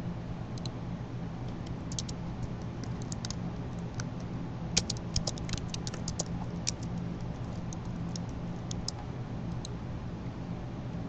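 Keystrokes on a computer keyboard in scattered runs, with a quick burst of typing about five seconds in, over a steady low electrical hum.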